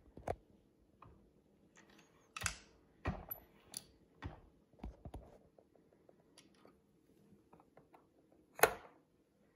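Irregular light clicks and taps of brass rifle cartridges being handled in and around a plastic cartridge box, with one sharper knock near the end.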